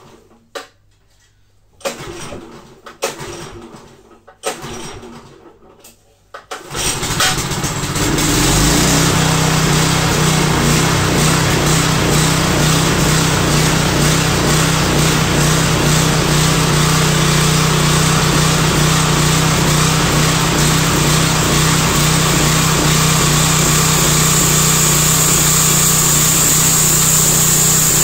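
A homemade bandsaw sawmill's small 8.5 hp engine is cranked in a few short attempts. It catches about seven seconds in and runs steadily and loudly, driving the saw. A high whine grows stronger near the end.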